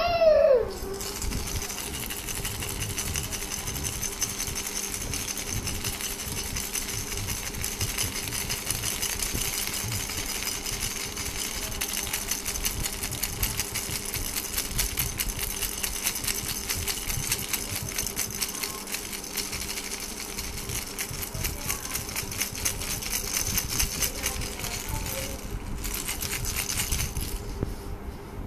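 A baby's rattle shaken rapidly and without a break, a dense, even rattling of small beads. It falters briefly near the end, then stops just before the end. At the very start a baby's fake cry breaks off as the rattling begins.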